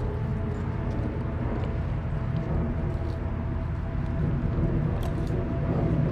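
A steady low rumble with a faint steady hum, and a few short sharp cracks, the clearest about five seconds in, as dogs chew on raw deer carcass and bones.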